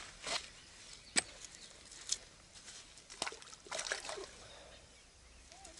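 Short splashes and sloshing of water, a few sharp ones about a second apart and a closer cluster around four seconds in, as a small tilapia is put into a keepnet sitting in the shallows.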